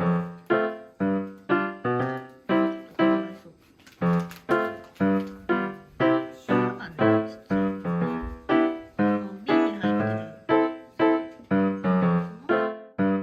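Background piano music: a light tune of evenly paced notes, about two a second, each struck and fading.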